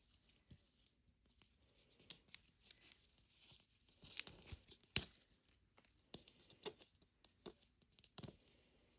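Faint crinkling of plastic packaging with scattered small clicks as a Mini Brands toy capsule and its wrappers are handled and opened, with one sharper click about five seconds in.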